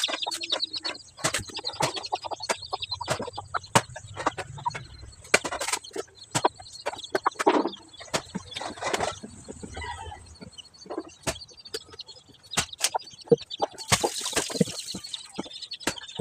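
Firewood being split and chopped with a blade: a quick, irregular series of sharp knocks of the blade into wood, with chickens clucking.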